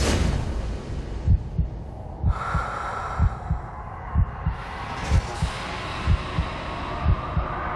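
Heartbeat sound effect: low double thumps, lub-dub, a pair about once a second, over a steady hiss.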